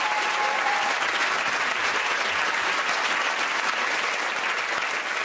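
Studio audience applauding steadily; a held tone fades out about a second in.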